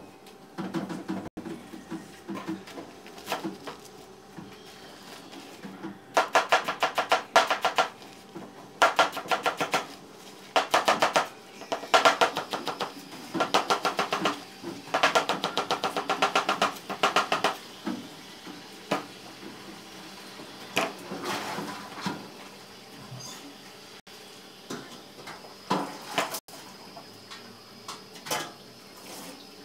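Large knife chopping leafy greens on a cutting board in fast runs of rapid strokes, several bursts of a second or two with short pauses between, and slower single chops before and after.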